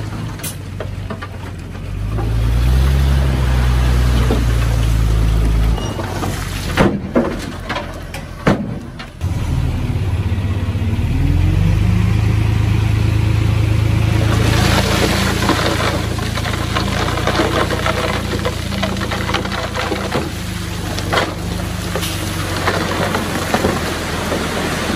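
Komatsu D20P bulldozer's diesel engine working, revving up about two seconds in and again around ten seconds, with a few sharp metal clanks in between. From about halfway a dense rattling clatter runs over the engine.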